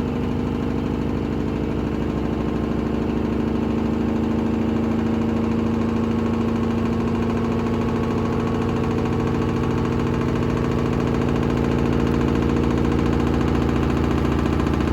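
Hoover H-Wash 300 washing machine spinning a very unbalanced load of bedding, its motor and drum running with a steady hum that grows slowly louder.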